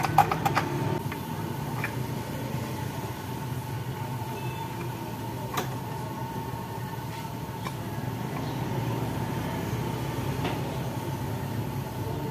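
Metal parts of a Yamaha Mio M3 scooter's final-drive gearbox being handled: a quick run of clicks in the first second, then a few single taps, over a steady low hum.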